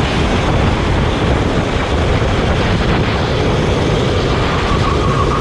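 Go-kart engine running under steady load with heavy wind noise on the microphone; a higher, steady engine note comes in about four and a half seconds in.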